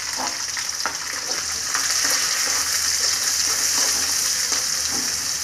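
Chopped onions, peanuts and green chillies sizzling in hot oil in an aluminium kadai, a steady hiss that swells a little about two seconds in. A metal spoon scrapes the pan now and then as the mixture is stirred.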